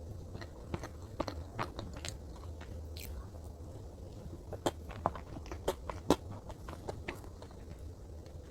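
Close-miked chewing of salted caramel chocolate cake: soft, sticky mouth clicks and smacks. They come in a cluster near the start and a louder one about halfway through.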